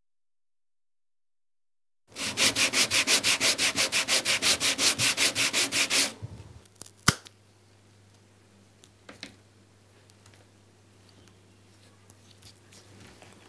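Sanding block with sandpaper rubbed briskly back and forth over a thin strip of wood, about five or six even strokes a second. It starts about two seconds in and stops after some four seconds, followed by a single sharp click and a few faint handling sounds over a low hum.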